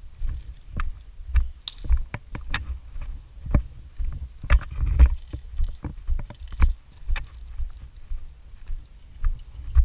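Irregular thumps and knocks, about two a second, over a low wind-like rumble: footsteps and gear jostling against a body-worn camera's microphone.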